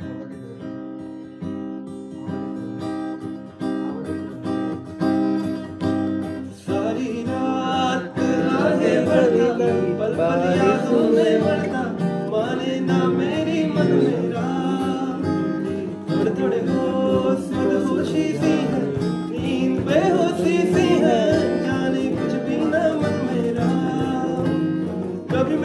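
Acoustic guitar played quietly for the first several seconds, then louder from about seven seconds in, when a man starts singing along to it.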